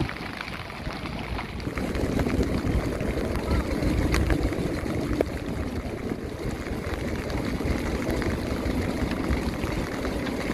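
Steady rushing water and wind noise aboard an open fishing boat at sea, with a low rumble and a few faint knocks.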